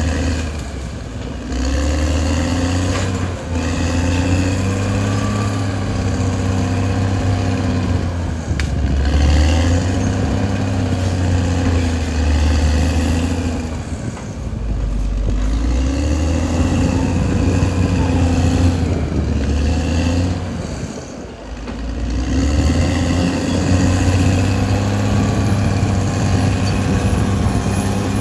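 Caterpillar D6R XL bulldozer's diesel engine running under working load, its low steady note easing off twice, about halfway through and again a few seconds later, before picking back up.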